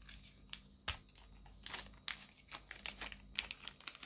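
Fingers handling a small clear plastic case of spare craft-knife blades: a run of light, irregular clicks and crinkles, busiest in the second half.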